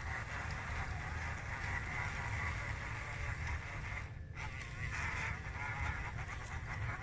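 Electric drive motor and gearbox of a Fayee radio-controlled tracked truck whining steadily as it crawls over dirt, over a constant low rumble. The whine breaks off briefly about four seconds in, then resumes.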